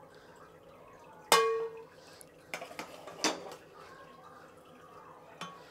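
A metal serving utensil clinking against a metal cooking pot as rice is spooned into it: one sharp ringing clink about a second in, then a few lighter knocks.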